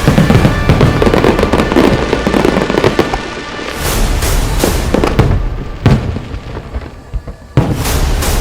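Fireworks going off: dense crackling for the first few seconds, then separate sharp bangs of bursting shells, the last of them sudden and loud a little before the end. Music plays underneath.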